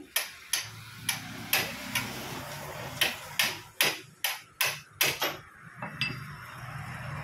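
About a dozen sharp metal-on-metal taps at roughly two a second on a 16-valve double-overhead-cam cylinder head, stopping about five seconds in, over a steady low hum.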